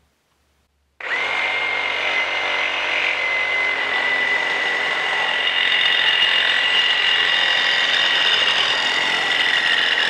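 Milwaukee M18 Super Sawzall cordless reciprocating saw starting up about a second in and cutting through a pipe with a metal-cutting blade. It runs loud and steady with a high, even whine.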